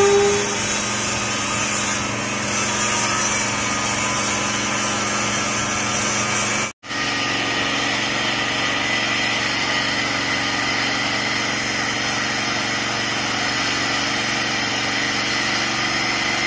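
Grinders dressing a fresh flash-butt weld on a rail: the steady whine of a hand-held angle grinder's disc on the steel, then, after a brief break about seven seconds in, a rail profile grinder running steadily over the weld to trim off the excess metal.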